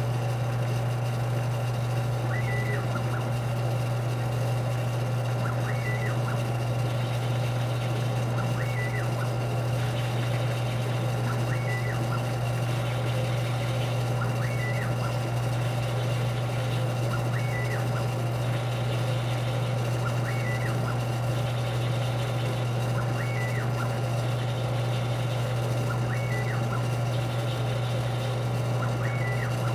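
CNC-controlled ShopTask lathe-mill combo running at low spindle speed with a steady low hum while threading an aluminium part. A short whine rises and falls about every three seconds as the carriage drive moves through each threading pass.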